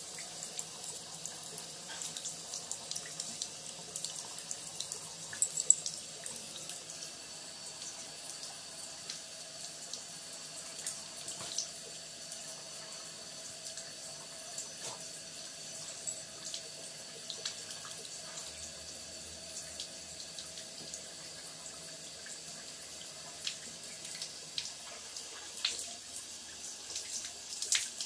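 Thin stream of water running from a bathtub faucet and splashing into the tub, with scattered small clicks and splashes as a dog laps and snaps at the stream.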